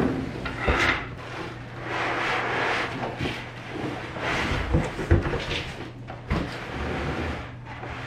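Cardboard box being handled and opened: flaps scraping and rubbing as a molded pulp packing tray slides out, with a few dull knocks.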